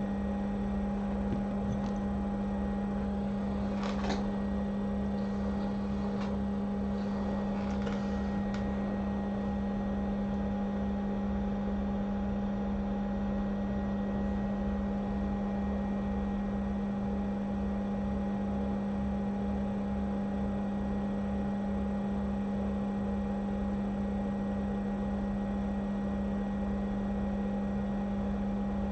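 Steady electrical hum with a fan-like rush from bench equipment, with a few faint clicks about four seconds in and again between six and eight seconds.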